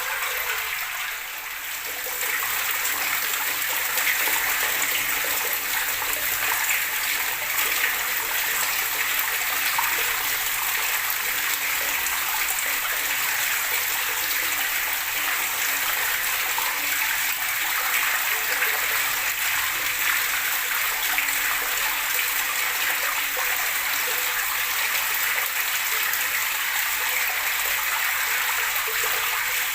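Running water gurgling and splashing steadily, dipping briefly in level about a second in.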